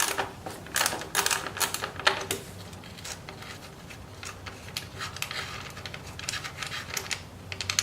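Wrench clicking and clinking on metal as the motorcycle's tail light mounting bolts are worked loose. The clicks come thick in the first two seconds or so, then sparser and more evenly spaced from about five seconds in.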